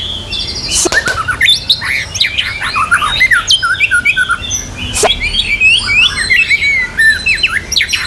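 White-rumped shama (murai batu) singing a fast, varied song of short whistled and gliding notes, with two sharp clicks, about a second in and about five seconds in.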